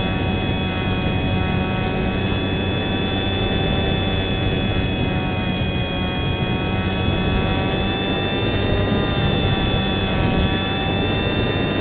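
Electric motor and propeller of a Wing Dragon RC model plane whining steadily at cruise throttle, heard close up from the onboard camera over a hiss of rushing air. The pitch sags slightly around the middle and climbs back a little later.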